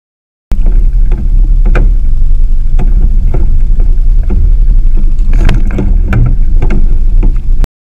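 Heavy rumbling wind buffeting on the microphone of a camera mounted on an inflatable boat at sea, with irregular sharp knocks and slaps. It starts abruptly about half a second in and cuts off suddenly near the end.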